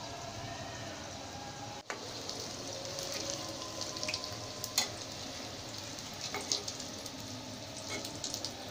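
Singaras deep-frying in hot oil, a steady sizzle, with a few sharp clicks of a utensil against the pan as they are stirred and turned to brown. There is a brief dropout about two seconds in.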